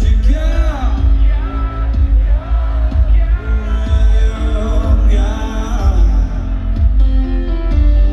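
Live rock band music heard from the crowd through the concert PA: a male lead singer sings over heavy bass and sustained held chords.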